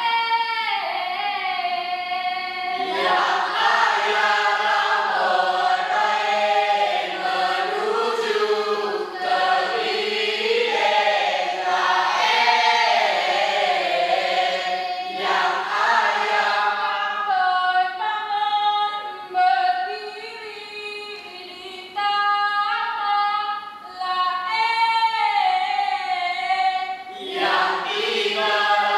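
A group of mostly female voices singing a Mek Mulung dance-drama song together in long, held phrases, with a softer lull partway through.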